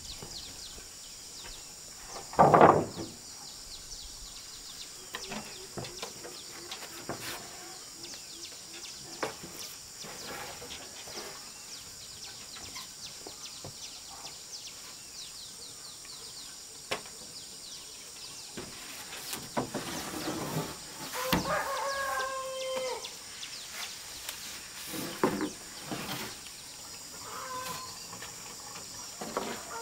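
Chickens clucking and calling in short, loud outbursts, about two and a half seconds in and again a little past the twenty-second mark, with a rooster-like held call. Scattered wooden knocks as boards are handled, over a steady high hiss.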